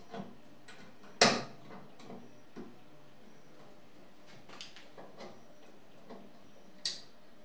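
A screwdriver loosening the hard-drive mounting screws in a metal desktop computer case: scattered small clicks and scrapes, with two sharp knocks, one about a second in and one near the end.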